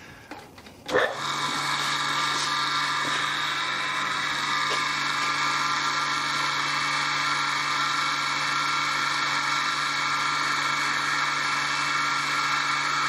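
Belt-driven grinding wheel of a tool grinder switched on about a second in. It comes up to speed within half a second, then runs steadily with an even motor hum and a whine of several steady tones.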